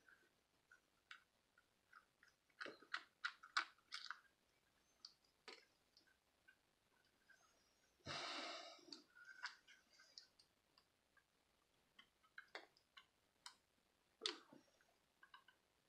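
Faint, scattered clicks and taps of a small screwdriver working on a Cobra MicroTalk walkie-talkie's plastic casing, in small clusters, with one brief hiss about eight seconds in.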